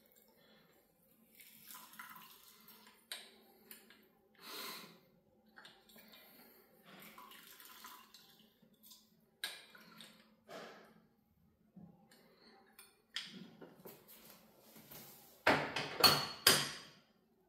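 Soft, scattered clicks and clinks from squeezing lemon halves in a metal hand-held citrus press and pouring the juice into a small glass jar. About sixteen seconds in comes a short, louder clatter at the kitchen sink.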